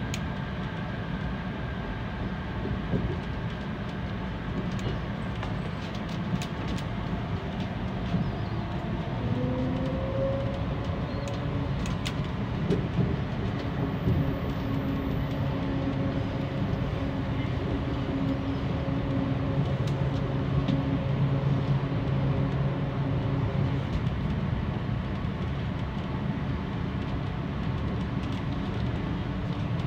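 Chiba Urban Monorail suspended car running, heard from inside the car: a steady rumble. About ten seconds in, a humming tone glides up briefly and then holds, fading out about two-thirds of the way through.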